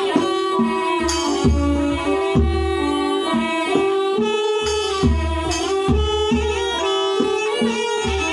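Kantrum mahori ensemble playing an instrumental passage: a bowed fiddle carries a held, wavering melody over a steady beat on the kantrum barrel drum, about two strikes a second.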